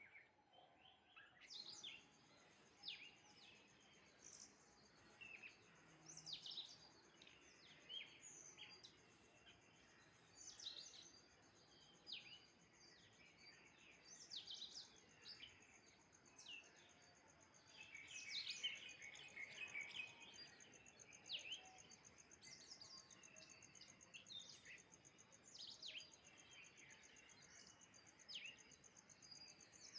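Small birds chirping and twittering: many short, high, overlapping chirps that start about a second and a half in and grow busiest past the middle.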